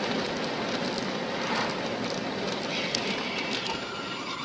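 Steady road and tyre noise from inside a car driving at highway speed. A faint high whine joins about three seconds in.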